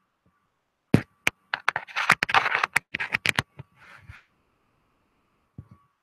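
A run of sharp clicks and scraping handling noise from about a second in until about four seconds in, as a laptop and the gear around it are worked by hand.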